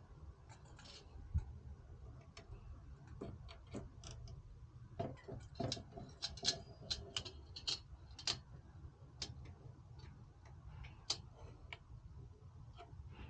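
Irregular light clicks and taps of small computer cooler parts being handled, coming thickest in a cluster near the middle, over a low steady hum.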